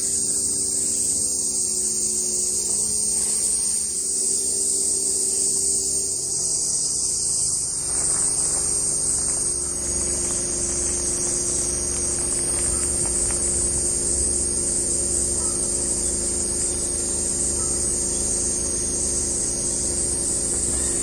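A steady, high chorus of cicadas. Under it runs the low, even hum of a Toyota RAV4's engine as the SUV creeps into the campsite, stronger from about a third of the way in.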